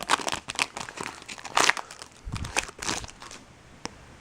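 Foil wrapper of a baseball card pack crinkling and tearing as it is opened by hand, in irregular crackly bursts that die down after about three seconds, with a single click near the end.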